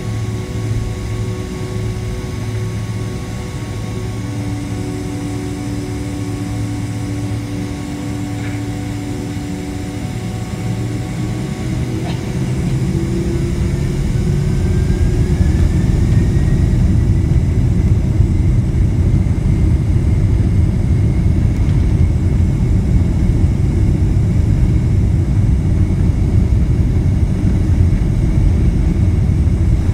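Boeing 767-300 jet engines heard from inside the cabin: a steady hum, then about twelve seconds in the engines spool up to takeoff thrust with a rising whine. The low rumble grows louder and stays loud as the takeoff roll begins.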